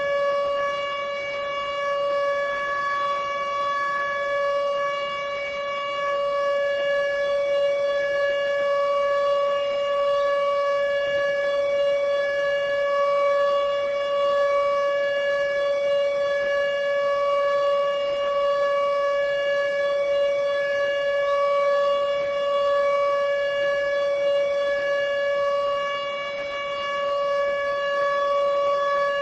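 Israeli civil defense siren sounding the steady memorial tone that marks the national minute of silence: one long note held at the same pitch with no rise or fall, its loudness wavering slightly.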